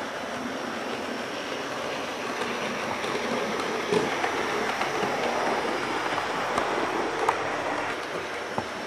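00-scale model GWR autotrain running on a layout: the steady whirr of the model locomotive's motor and wheels rolling on the rails, with a few sharp clicks over rail joints.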